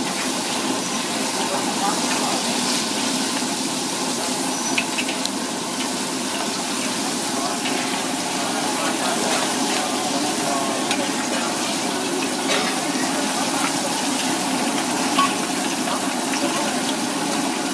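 Mud crab pieces boiling hard in a wok, giving a steady rushing bubble, with a few light clicks and voices in the background.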